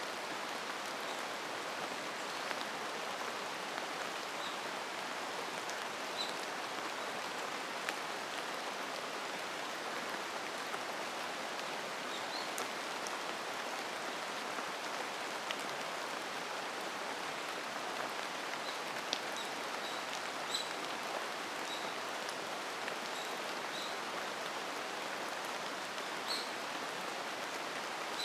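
Steady rain: an even hiss with scattered louder drop hits, and now and then a faint, short high bird chirp.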